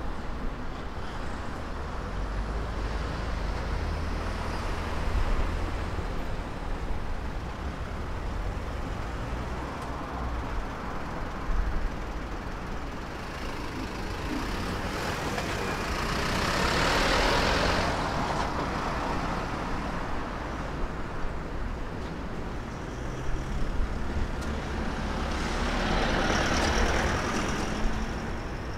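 Road traffic: a steady low engine rumble, with two vehicles passing close by, one about halfway through and another near the end.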